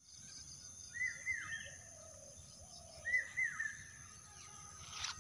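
A bird calling outdoors: a pair of short arched chirps about a second in, repeated about two seconds later, over a faint open-air background.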